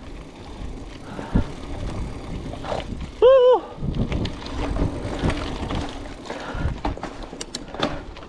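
Hardtail mountain bike rolling down a rough dirt trail: tyre noise with irregular knocks, clicks and rattles from the bike over rough ground. A short, loud, high-pitched wavering tone sounds about three seconds in.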